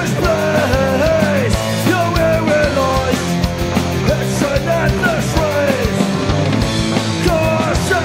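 Oi!/streetpunk band recording: a full rock band with drums striking a fast, steady beat and a bending melody line over a dense, loud band sound.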